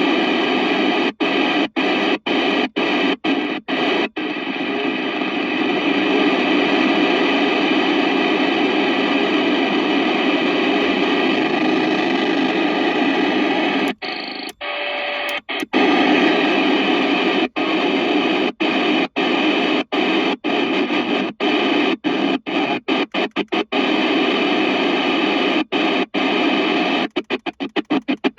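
FM radio receiver tuned to the 27 MHz UK FM CB band, giving out steady hiss from an empty channel. The hiss is cut by many sudden brief silences, which come in quick succession near the end. About halfway through there is a short quieter stretch holding a brief tone.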